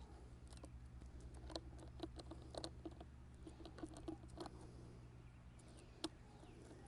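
Scattered light clicks and taps of hand work on a Milwaukee M18 chainsaw as its thrown chain is refitted on the bar, with one sharper click about six seconds in, over a low steady hum.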